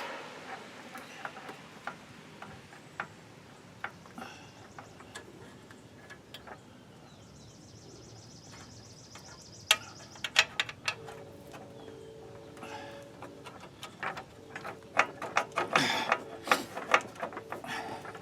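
Scattered metallic clicks and clinks of hand tools and parking-brake parts being handled, more frequent in the second half with a busy cluster near the end. A steady hum joins partway through.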